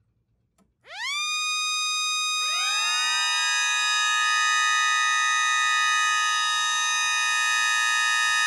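Connor Cruz mini electric sirens winding up. One spins up fast to a steady high wail about a second in, and more join about a second and a half later at lower pitches. They then hold a steady, loud chord of wails.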